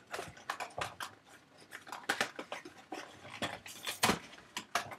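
Irregular clicks and light rattles of a bike air horn and its packaging being handled, the loudest a sharp click about four seconds in. The horn itself does not sound.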